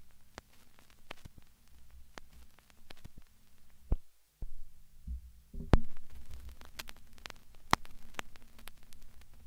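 Low, steady electrical hum with scattered crackling static clicks, cutting out briefly about four seconds in, with a few louder thumps around the middle.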